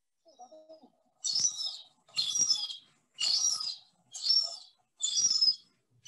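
Young gull calling over and over: five high, wavering cries about one a second, starting about a second in.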